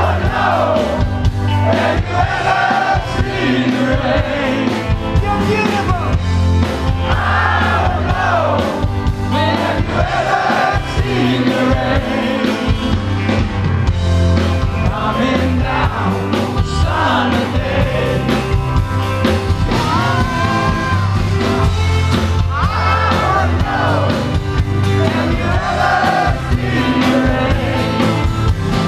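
Live rock band playing through a large concert sound system, with a male lead vocal over a strong, steady bass line, heard from among the audience.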